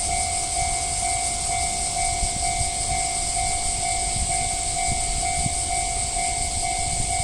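Japanese level-crossing warning bell ringing in a steady, even repeating pattern, over the low rumble of a freight train rolling past the crossing.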